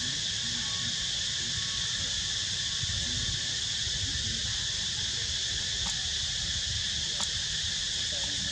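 Steady chorus of insects: a constant high buzzing at two pitches that never breaks, over a low rumble, with two faint ticks in the second half.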